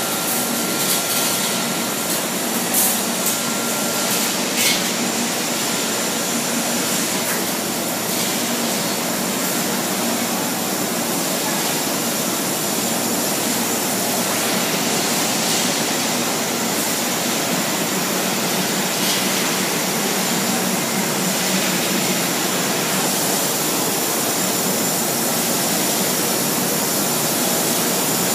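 TEAM TD560-7 seven-block wire drawing machine running, a steady loud mechanical roar and hiss of its spinning drawing blocks and drives as steel wire is pulled through. A few clicks come in the first five seconds.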